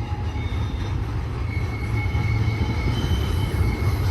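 Intermodal freight train cars rolling past with a steady low rumble of wheels on rail. A thin, steady wheel squeal comes in about a second and a half in.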